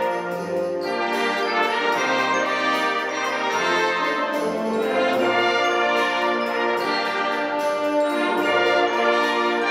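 Concert wind band playing: brass and woodwinds sounding full chords together over a steady ticking beat.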